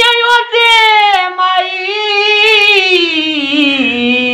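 An elderly man singing a Saraiki mahiya folk verse unaccompanied, in a high, drawn-out voice: one long held phrase whose pitch sinks slowly lower.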